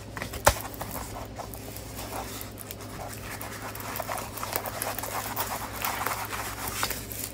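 A plastic-covered diamond painting canvas being unrolled and smoothed flat by hand: crinkling and rustling of the film and canvas, with a sharp tap about half a second in.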